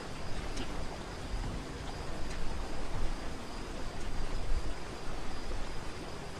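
Steady rushing noise of a waterfall, with a low rumble that rises and falls. A faint, steady high insect drone and a few short, high chirps sit on top.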